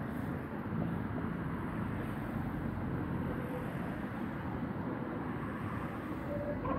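Steady rumble of city traffic, an even wash of noise with no single event standing out.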